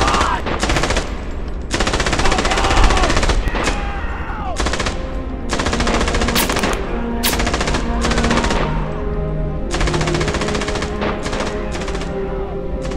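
Long bursts of rapid machine-gun fire with short breaks between them, as a battle sound effect. A music score of long held notes comes in about five seconds in and builds under the gunfire.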